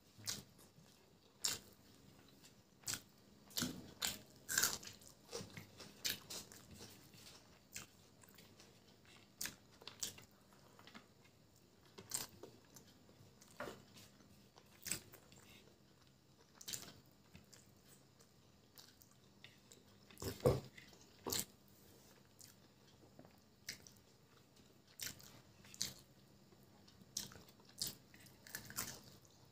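Close-miked mouth sounds of someone eating chicken biryani by hand: chewing with short, irregular wet clicks and smacks, about one or two a second, with one louder smack a little past two-thirds of the way through.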